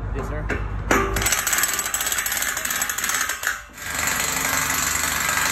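Impact wrench hammering at the base of a steel column, tightening its anchor-bolt nuts: a fast, loud rattle that starts about a second in, breaks off briefly past the middle, then runs on again.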